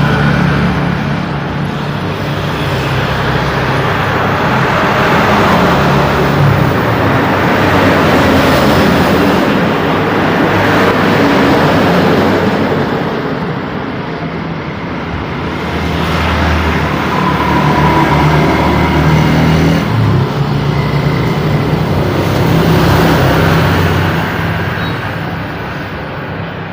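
Busy road traffic: a continuous stream of vehicles passing close by, engine rumble and tyre noise swelling and fading every few seconds as each one goes past.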